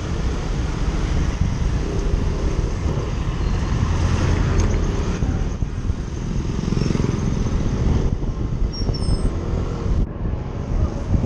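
Steady road noise from a moving vehicle, a dense low rumble of engine and road.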